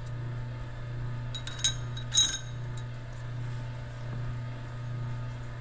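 Tabbed metal thrust washers clinking against a planet carrier plate as they are set onto its gear posts: two light metallic clinks about a second and a half and two seconds in, over a steady low hum.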